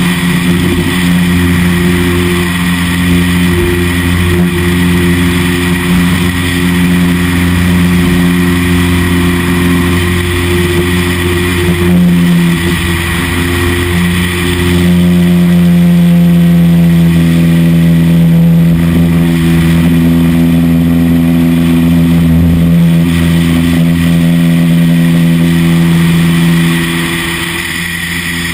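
Light single-engine propeller aircraft's engine and propeller at climb power just after take-off, a steady loud drone. It grows louder with extra tones about halfway through, then drops noticeably near the end.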